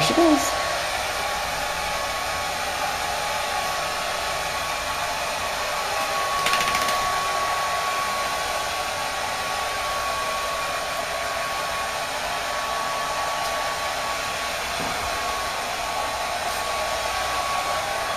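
Hair dryer running steadily: an even rush of air with a steady whine over it, drying a Yorkie's coat.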